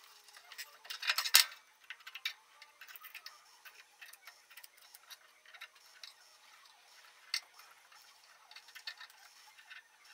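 Masking paper and tape being handled and pressed down on a steel welding table: soft rustles and scattered small ticks and scrapes, with one louder crinkling scrape about a second in.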